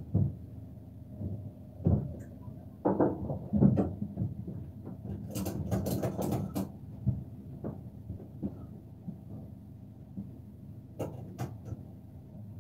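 Irregular knocks, clatters and rattles inside a Fiat Ducato van's cab over a steady low hum, with a busy run of clattering in the middle and a few sharper knocks near the end.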